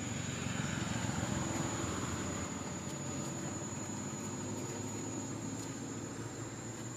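A steady low rumble that eases off slightly toward the end, under a thin, steady high-pitched whine.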